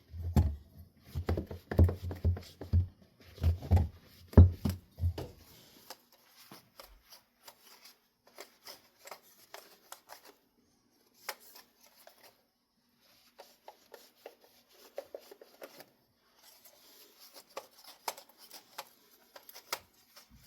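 A run of knocks and thumps, like objects being handled and set down on a hard surface, for about the first six seconds. Then come faint scattered clicks and rustling.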